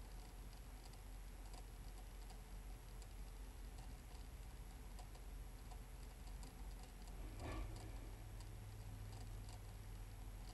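Small motorized display turntable running: faint ticking over a low hum, with a brief louder rustle about seven and a half seconds in.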